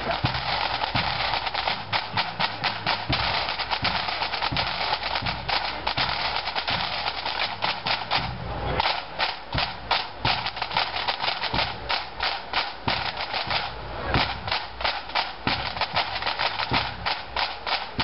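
Pipe band snare drums playing a fast drum passage of rolls and sharp, rapid strokes.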